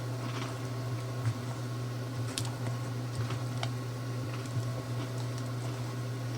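A spoon folding sliced bananas and vanilla wafers into thick, hot pudding in a bowl: soft squishing with a few light clicks of the spoon against the bowl, over a steady low hum.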